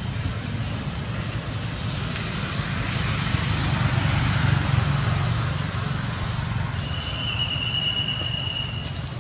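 Steady outdoor background noise: a low rumble under a steady high hiss, with one thin, high, held tone lasting about two seconds near the end.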